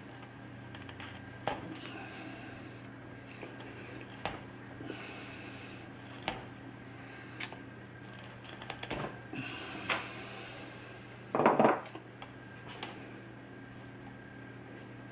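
Small metal hand tools clicking and scraping as electrical wire is stripped and handled, with a brief louder rattle about eleven seconds in, over a steady low hum.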